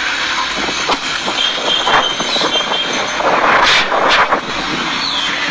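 Street noise from passing traffic: a steady rushing hiss with scattered clicks and knocks, swelling louder for about a second roughly three seconds in.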